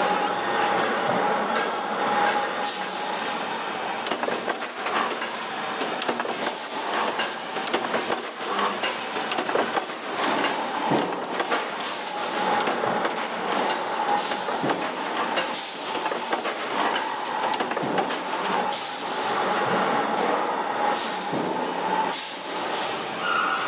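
Sheet-metal factory machinery running: a steady mechanical din with a constant whine, broken by irregular clanks and knocks of steel sheets and machine parts.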